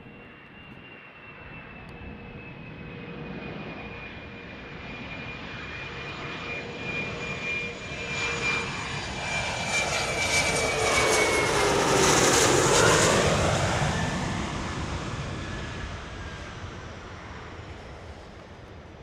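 Fokker 70 jet airliner on landing approach, its two rear-mounted Rolls-Royce Tay turbofans whining over a jet rush. The sound swells to a peak about twelve seconds in as the aircraft passes close by, the whine dropping in pitch, then fades as it heads down the runway.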